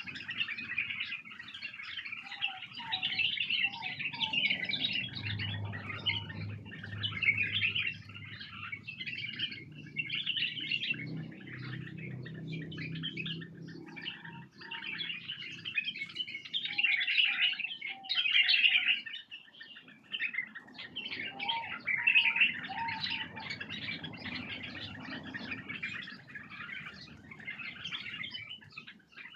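Many white-eared bulbuls chirping and calling together, a dense run of short overlapping calls with no break. These are the calls of wild bulbuls, used to stir an untrained bulbul into song.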